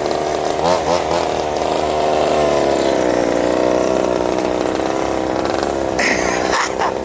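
Small two-stroke engines of remote-control cars running together, a steady buzz whose pitch wavers as the throttles change. A short burst of noise about six seconds in.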